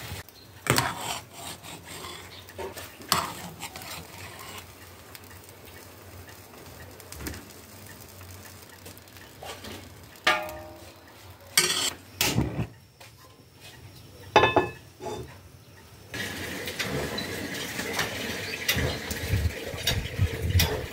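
Metal skimmer clanking and scraping against an enamel pot and an aluminium cauldron as boiled mushrooms are scooped out, several knocks ringing briefly. For the last few seconds a steady hiss takes over.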